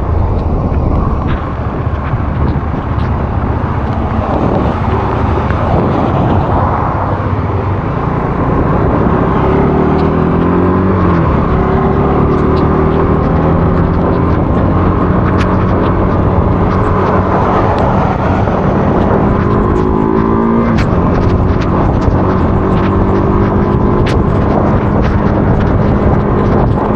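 Motorcycle engine under way over heavy wind noise, its revs climbing twice, about a third and three quarters of the way in, then settling to a steady pitch. Scattered sharp ticks in the second half.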